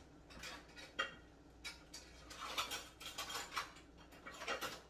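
Dishes and cutlery clinking and clattering in a kitchen: a sharp clink about a second in, then scattered bouts of light clatter.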